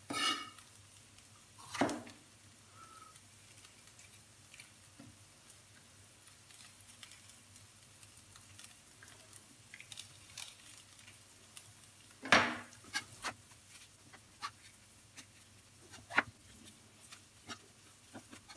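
Chef's knife knocking and scraping on a wooden cutting board as bell peppers are trimmed of their white pith and seeds: scattered sharp knocks, the loudest about twelve seconds in.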